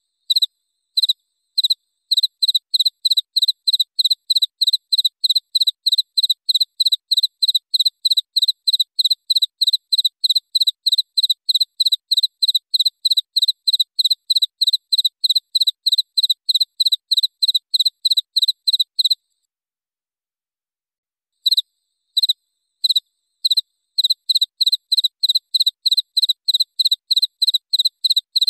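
Cricket chirping in a fast, even series of short high-pitched chirps, about three a second. Around two-thirds of the way through it stops for about two seconds, then resumes with a few spaced chirps before settling back into the steady run.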